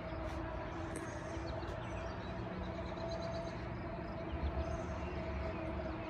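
Outdoor ambience: small birds chirping now and then over a steady faint hum and a low rumble.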